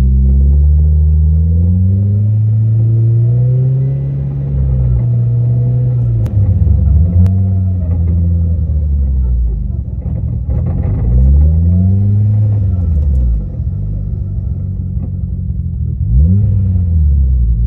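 Mitsubishi Lancer Evolution running in gear on a lift with its wheels turning in the air, the revs climbing and dropping back about four times. It is a test run after a rear differential and transfer case replacement meant to cure a drivetrain noise.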